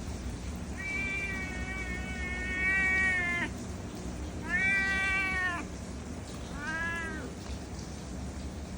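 Domestic cat meowing three times: a long drawn-out meow of nearly three seconds that drops in pitch at the end, then a shorter meow that rises and falls, then a brief one.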